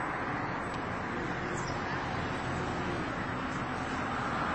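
Steady outdoor background noise, an even hiss and rumble with no distinct event.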